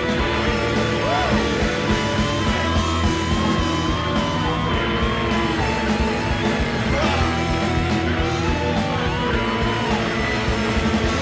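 Rock band recording with electric guitars, bass and drums playing steadily, and a lead line of long, wavering held notes above the band.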